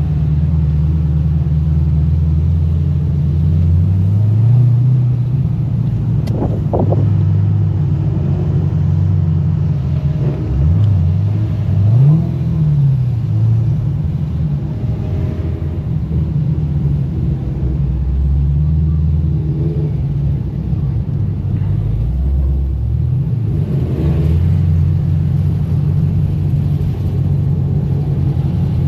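Low rumble of V8 car engines cruising at low speed, with several short revs that rise and fall in pitch, about six seconds in, around ten to twelve seconds, and near twenty-four seconds.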